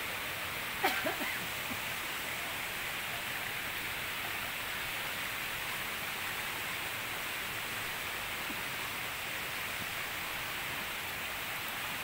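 Steady rushing of flowing water from the park's stream and waterfalls, an even hiss at a constant level, with a short voice about a second in.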